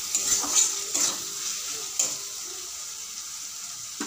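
Metal spatula stirring and scraping potatoes, onion and ground spices frying in oil in a metal kadai, over a steady sizzle. The scraping strokes come several times in the first two seconds, then mostly the sizzle is left.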